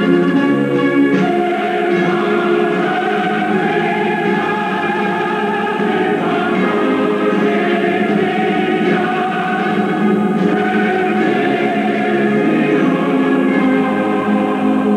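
Choral music: a choir singing slow, long-held chords over an orchestral accompaniment.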